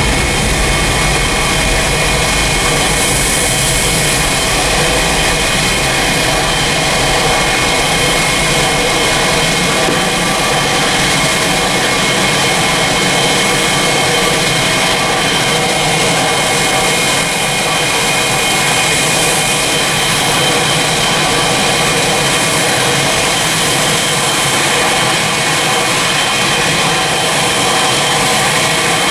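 Airliner jet engines running steadily: a loud roar with a high, steady whine over it, the deep rumble easing after about ten seconds.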